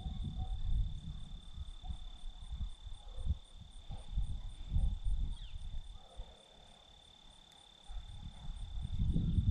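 A steady high-pitched insect drone, with a faint, evenly pulsing high ticking above it, over low, gusty rumbling noise on the microphone that dies away for about two seconds near the end.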